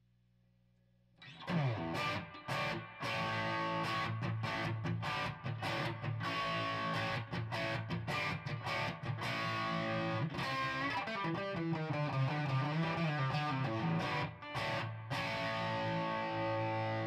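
Electric guitar played through a guitar amplifier whose output is cut by 6 dB by a power attenuator. A faint steady amp hum for about the first second, then continuous playing, with wavering bent notes past the middle.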